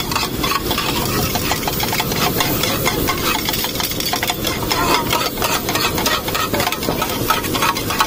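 Steel spatulas scraping and clanking quickly and repeatedly on a flat iron griddle while stir-frying rice, over the sizzle of frying.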